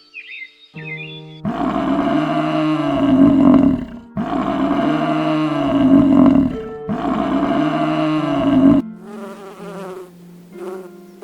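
Three long, loud animal calls in a row, each rough and rising then falling in pitch, over soft background music.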